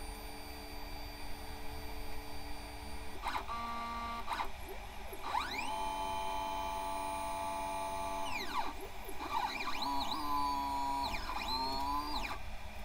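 Stepper motors of a DIY Arduino GRBL CNC pen plotter moving its belt-driven gantry in several separate runs, each a whine that rises in pitch as the motor speeds up, holds steady, then falls away as it slows to a stop. The longest run is in the middle; between runs only a faint hum remains.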